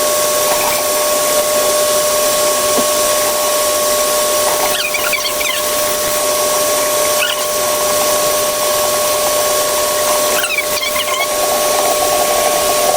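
Tap water running hard under a faucet as a vinyl doll is rinsed under it: a steady rushing hiss with a steady two-note whine through it.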